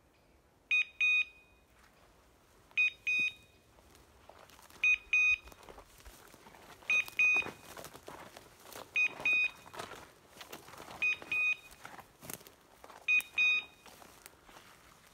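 Electronic beeper collar on a hunting setter sounding short double beeps, one pair about every two seconds, seven times in all.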